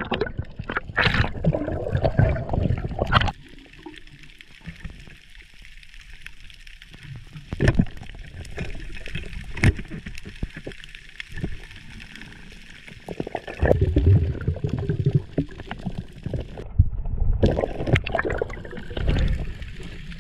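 Water sloshing and gurgling around an underwater camera as a freediver swims and dives, coming in uneven rushes, with a couple of sharp knocks near the middle.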